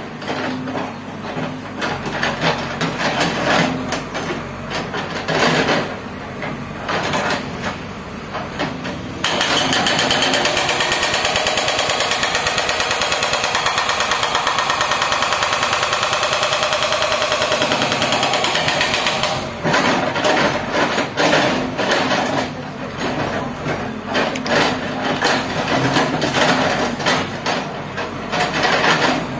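Hydraulic rock breaker on a Cat backhoe loader hammering into red rock and earth in rapid blows, with the diesel engine running underneath. The hammering goes steady, denser and louder from about a third of the way in until about two thirds through, then turns irregular again.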